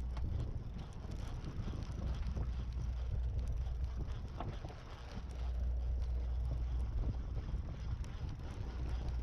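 Low rumble of wind on the microphone mixed with a fishing boat's steady background noise on deck, easing off for a few seconds midway and then returning, with scattered light clicks and knocks.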